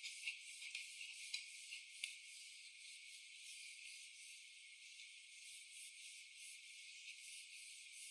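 Faint light clicks and small rattles, four or five in the first two seconds, then only a faint hiss.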